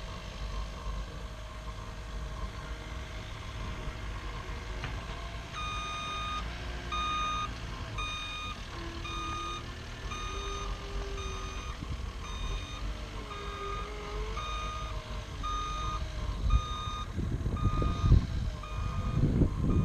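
Heavy equipment's back-up alarm beeping about twice a second, starting about six seconds in and stopping near the end, over a steady low rumble of the work site. Gusts of wind buffet the microphone in the last few seconds.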